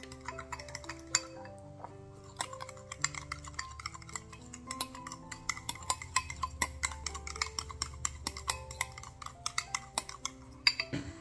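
Metal spoon stirring a barbecue-sauce marinade in a glass bowl, clinking against the glass in rapid repeated taps, over background music of sustained notes.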